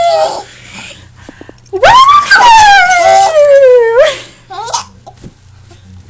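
A dog's drawn-out howling whine. The tail of one call slides down in pitch at the start. About two seconds in, a longer call rises, glides slowly down for about two seconds and turns up again at the end, followed by a brief short call.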